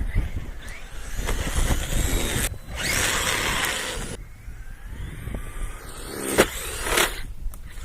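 Battery-electric RC monster trucks driving through snow and slush, tyres churning with a loud hissing rush for a second or two in the middle and wind rumbling on the microphone. A few sharp knocks late on, like the truck landing or hitting something.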